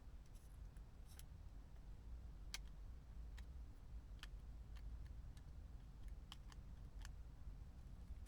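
Faint, sharp clicks at irregular intervals, roughly one a second, over a low steady hum.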